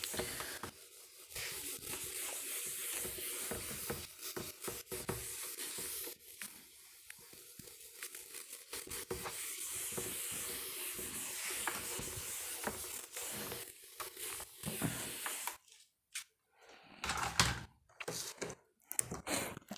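Whiteboard eraser rubbing across a whiteboard in repeated wiping strokes, a scratchy hiss. The wiping stops about three-quarters of the way through, leaving a few short scattered knocks and rustles.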